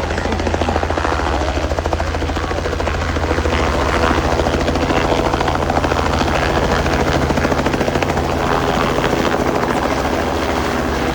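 Helicopter running close by, with the fast, even beat of the rotor over a steady turbine whine; it holds steady throughout.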